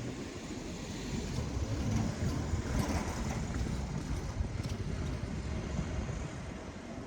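Low rumble of a freight train running past, swelling over the first couple of seconds and then slowly easing off, with a few faint clicks.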